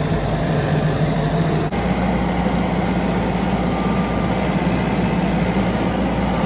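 Tractor engine running steadily with a deep, even hum. The sound shifts abruptly just under two seconds in.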